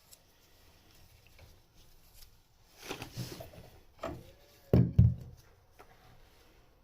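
A few knocks and bumps, the two loudest in quick succession about five seconds in, after a short rustle.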